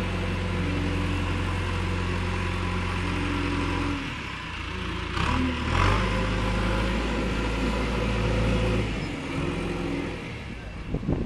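An engine runs steadily, its note shifting at about four seconds in and again near the end, with a brief noisy clatter around five to six seconds.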